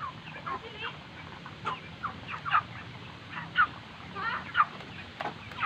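Flock of chickens making many short, overlapping chirping calls over a steady low hum. The birds have a mild respiratory rattle ('ngorok'), which the farmer puts down to rainy-season drinking water chlorinated too late.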